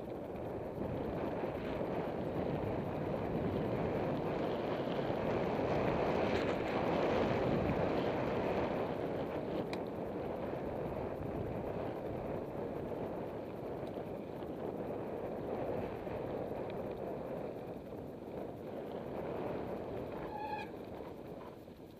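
Mountain bike rolling fast down a dirt and gravel trail: wind rushing over the microphone mixed with tyre noise on the loose surface, swelling about six seconds in and easing later. A short squeal, the brakes, near the end as the rider slows.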